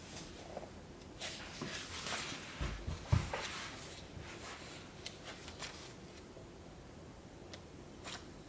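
Light handling sounds: scattered rustles and small clicks, with a soft thump about three seconds in.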